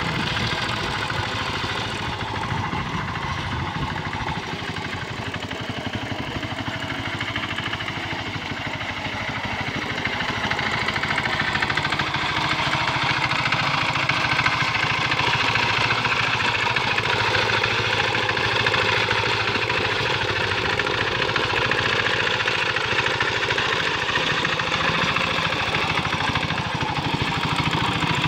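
Quick Capung Metal two-wheel hand tractor's small engine running steadily under load as it works through flooded paddy mud, growing louder about ten seconds in.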